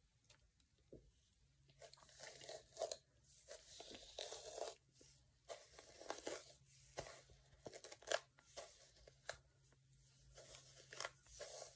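Denman brush dragged through wet, gel-coated curly hair in repeated short strokes, each a faint scratchy crackle, irregularly about once or twice a second after the first couple of seconds, over a faint steady low hum.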